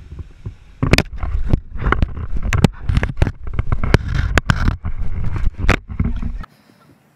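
An alligator biting and shaking a camera: rapid sharp knocks and scrapes of its teeth and jaws on the camera over a low rumbling handling noise, cutting off suddenly about six and a half seconds in.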